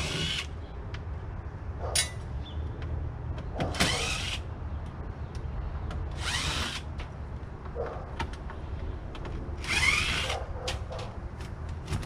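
Power drill driving screws out of the sheet-metal panel of a closet-type AC unit: four short bursts about three seconds apart, some with a rising whine, with small clicks between them.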